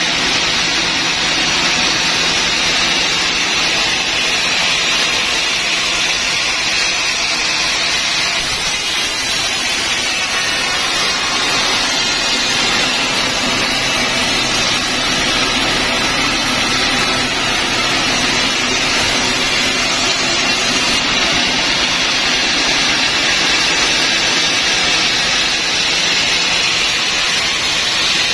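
Vertical band sawmill running, its band blade cutting lengthwise through a large log: a loud, steady hiss with the drone of the mill's drive underneath.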